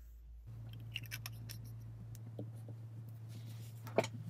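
Light ticks and handling sounds, then a sharper tap about four seconds in as a fountain pen is laid down on a sheet of paper on a desk, over a low steady hum.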